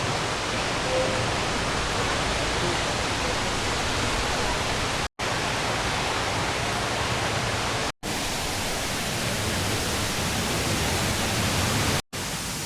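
Waterfall's steady rush of falling water, cutting out for an instant three times.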